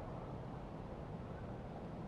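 Faint, steady low rumble of distant city traffic.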